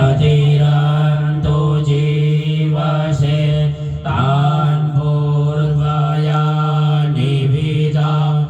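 Hindu mantras chanted on a steady, droning reciting note, with new phrases beginning about four seconds in and again near the end.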